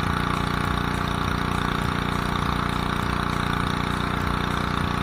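Ryobi 3000 PSI gas pressure washer's Honda engine running at a steady speed, with the hiss of the high-pressure water spray on concrete.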